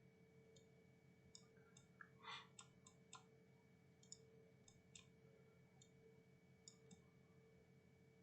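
Faint, irregular clicks of a computer mouse, about twenty in all, over a steady low electrical hum.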